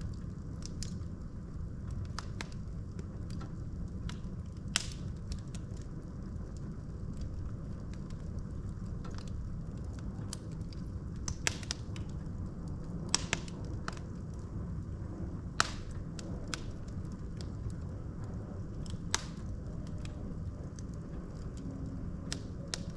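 Wood fire in a fireplace: a steady low rumble of burning logs with irregular sharp crackles and pops, several louder snaps scattered through.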